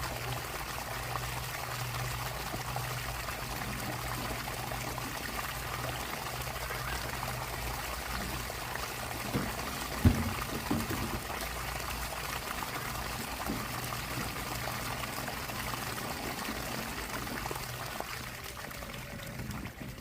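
Water pouring steadily over a low steady hum, with a single sharp knock about ten seconds in.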